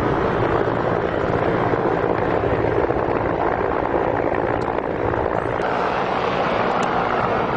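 Steady, loud engine noise with a low, even hum.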